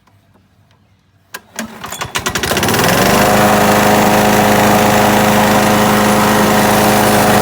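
Craftsman 6.75 hp lawnmower's single-cylinder petrol engine is pull-started. A couple of clicks come about a second and a half in, and the engine catches at once. It runs up and then runs loud and steady at an even speed, starting after a carburettor clean meant to cure a no-start.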